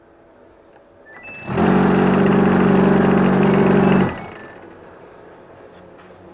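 Samsung heat pump tumble dryer running with a low hum, then a loud, harsh mechanical noise starts suddenly about a second and a half in, holds steady for about two and a half seconds and cuts off, leaving the hum. The noise is the dryer's fault, which the owner suspects comes from the fan.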